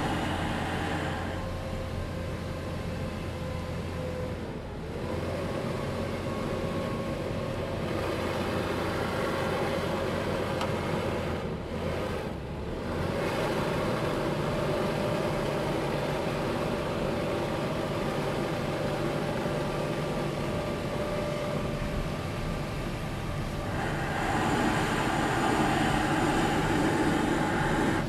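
Gas-powered leaf blower engine running just outside the bus, heard through the door, as it is blown along the door seam to find a whistling air leak. Its pitch dips briefly twice, and it gets louder near the end.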